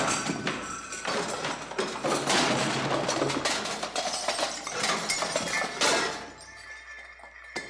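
Crash sound effect: a long, dense smashing and clattering that dies away about six seconds in.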